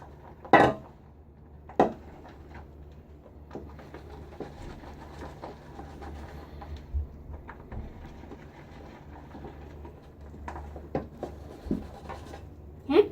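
Badger-hair shaving brush whipping soap lather in a bowl: soft wet swishing and scraping, with a couple of sharp knocks of the brush against the bowl near the start.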